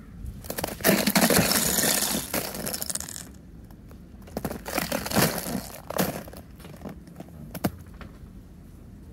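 Boots crunching through a hard icy crust on snow: a long crackling crunch, then shorter crunches a couple of seconds later, and one sharp crack near the end.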